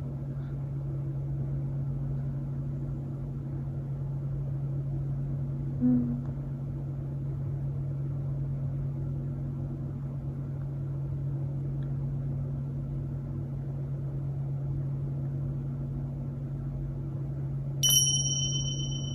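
A steady low hum from a household machine. There is a short low sound about six seconds in, and a sharp click that rings on in a high ping for about a second near the end.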